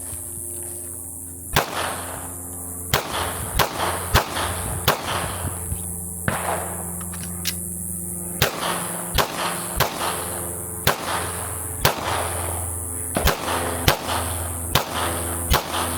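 A string of 9mm pistol shots, sharp single reports fired at an irregular pace of about one a second, during a timed shooting drill. A steady low hum runs underneath.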